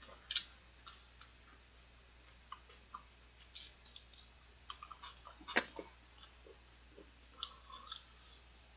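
A person chewing cold leftover fried chicken close to the microphone: scattered small wet mouth clicks and smacks, with a sharper one about five and a half seconds in.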